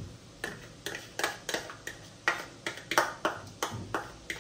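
Metal fork tapping and scraping against a small ceramic dish to knock grated garlic out into the beaten-egg plate: a quick series of sharp, ringing clinks, about three a second.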